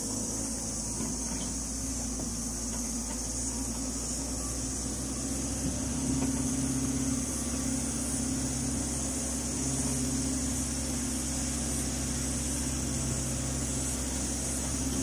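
Ute engine running at low revs as the truck creeps along a rough bush track, a steady low hum that grows a little louder about six seconds in. A steady high insect drone sits behind it.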